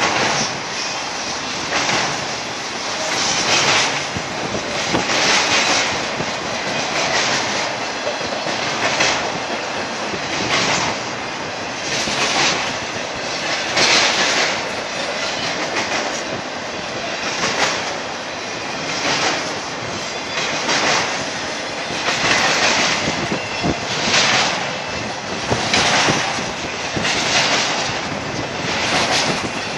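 Cars of a BNSF intermodal freight train rolling past, wheels clattering and rumbling over the rails, the sound swelling in a regular beat about every one and a half to two seconds as each car's wheel sets go by.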